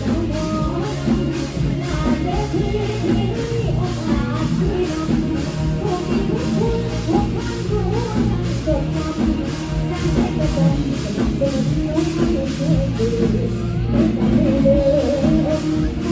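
Live band music with a steady drum beat and a singer's voice.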